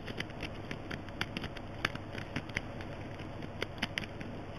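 Twin peak rake working the pins of a Road Pro 70 mm five-pin brass roller bolt padlock: an irregular run of small metallic clicks and scrapes as the rake is rocked in the keyway.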